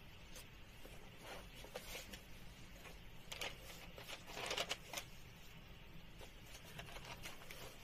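Faint rustling and scraping of a sheet of calligraphy practice paper being slid across the desk, in a few soft strokes, the loudest between about three and five seconds in.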